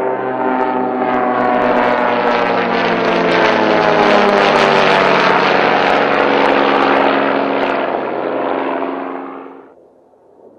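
Aero L-39 Albatros jet trainers flying a low pass, their turbofan engines whining loudly with a rushing noise, the pitch sinking slightly as they go by. The sound cuts off suddenly near the end.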